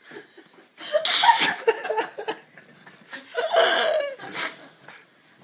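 Hushed, breathy laughter from people watching, in bursts about a second in and again around three and a half seconds.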